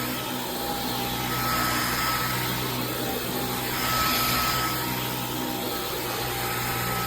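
Vacuum cleaner running: a steady motor whine over a rush of air, swelling and easing in loudness a few times.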